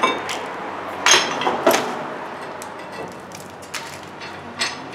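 Metal tools and parts being handled: a sharp click at the start, then two louder clanks about half a second apart a second in, and a lighter knock near the end, as the steel drum puller is taken off the hub and the brake rotor handled.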